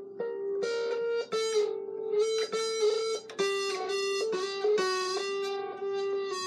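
Guitar played solo: a melody of plucked single notes ringing over a steady held lower note.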